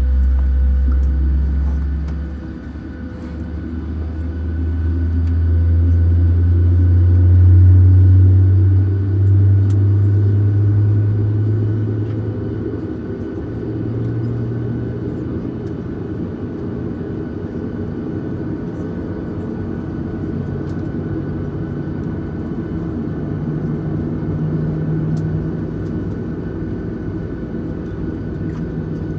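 Inside the passenger cabin of a Boeing 737-900ER with CFM56-7B engines on the ground during pushback and taxi: a steady rumble and hum. A deep hum rises in pitch and grows louder over the first several seconds, peaks, then fades away.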